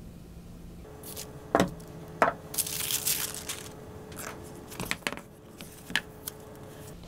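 Handling noises on a work table: several sharp knocks as objects are set down, and a crinkling rustle of wax paper sheets for about a second midway. Near the end a hardback book is set down and opened.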